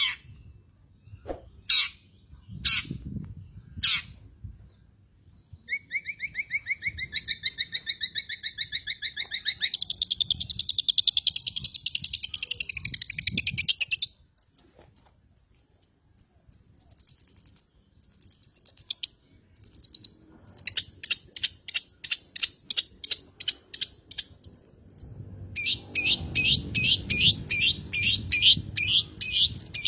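Long-tailed shrike (cendet) song: a few sharp single calls, then long runs of fast chattering notes and high whistled phrases, with a brief pause about halfway through.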